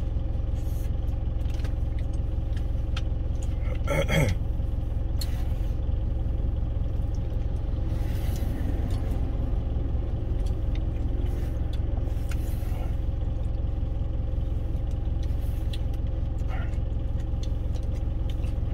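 Truck engine idling steadily, heard from inside the cab. A short vocal exclamation comes about four seconds in.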